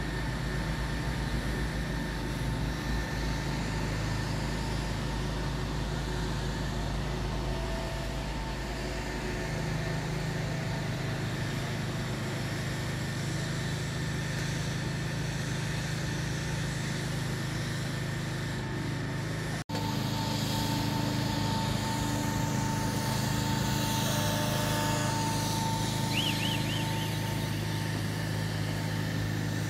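Steady machine hum with several held tones, like a motor running, over general site noise; it changes abruptly about two-thirds through to a louder, stronger hum.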